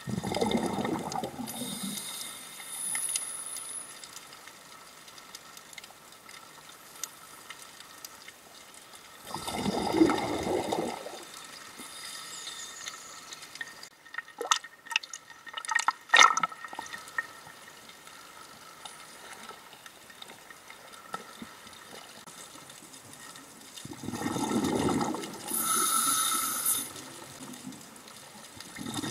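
Underwater sound of a scuba diver's exhaled bubbles rushing out in bursts, at the start, about ten seconds in, and again near the end. In the middle, water splashes and slaps against the camera at the surface in a quick run of sharp clicks.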